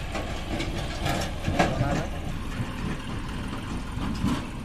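John Deere 5050 D tractor's three-cylinder diesel engine running steadily while it pulls a fully loaded trolley. A person's voice calls out in the first half.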